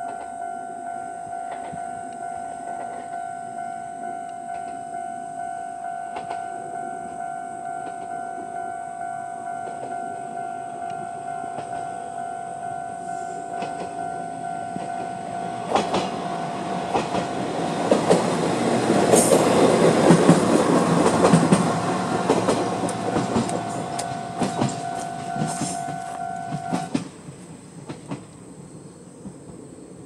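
Railway level-crossing alarm ringing its steady repeating electronic bell. Just over halfway in, a Mooka Railway Moka 14 diesel railcar passes, its wheels clacking over the rail joints, loudest a few seconds after it arrives. The alarm stops suddenly a few seconds before the end as the train clears.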